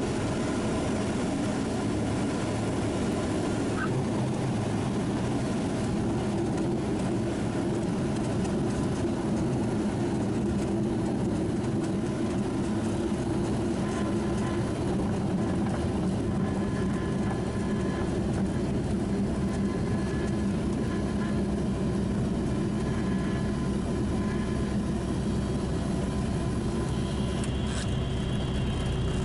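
Single-engine light aircraft's piston engine and propeller running steadily at low power, heard from inside the cockpit as the plane rolls along the runway after landing.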